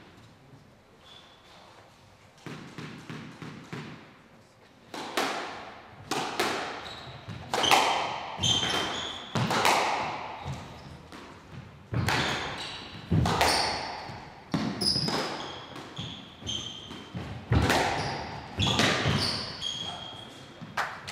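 A squash rally: the ball struck by racquets and cracking off the court walls about once a second, each hit echoing in the hall, with high, short shoe squeaks on the court floor. The hits start about two and a half seconds in, after a quiet start.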